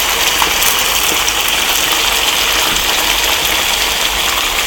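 Fish frying in hot oil in a pan: a steady sizzle with a few small pops, the fish nearly cooked.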